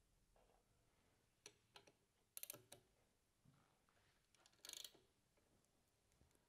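Faint metal clicks and taps as a brass pipe plug with a new Dowty seal is screwed into the pump casing by hand and a ratchet ring spanner is fitted onto it. The clicks are scattered, with a small cluster about two and a half seconds in and a short rattle near five seconds in.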